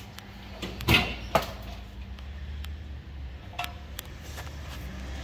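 A few sharp clicks and knocks, the two loudest close together about a second in, then fainter ones, over a low steady hum.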